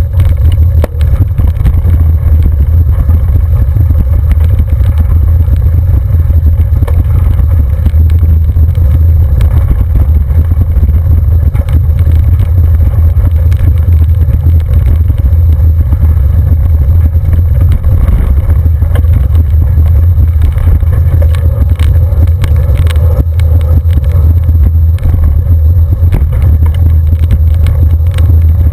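Bicycle rolling over a loose gravel road, recorded by a handlebar-mounted camera. A loud, steady low rumble of wind and road vibration fills the microphone, with scattered clicks and rattles from the tyres on the gravel.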